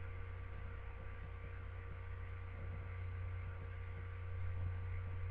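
Steady low electrical mains hum with faint hiss underneath.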